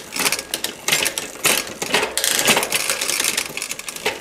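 SunTour XCE bicycle drivetrain turned by hand in a work stand: the chain runs over the spinning rear cogs with a stream of irregular clicks and rattles as the derailleur is shifted through the gears.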